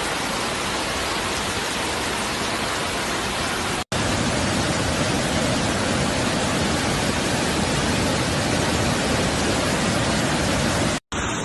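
Steady rush of torrential floodwater and heavy rain. About four seconds in it cuts hard to a second clip with a louder, deeper rush.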